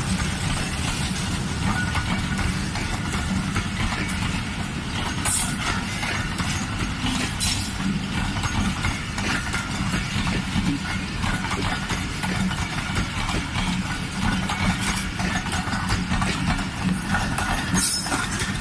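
Diesel locomotive engine idling steadily with a constant low hum.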